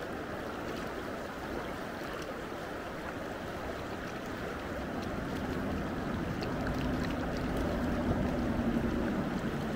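Steady rush of the Gallatin River's current, growing a little louder about halfway through.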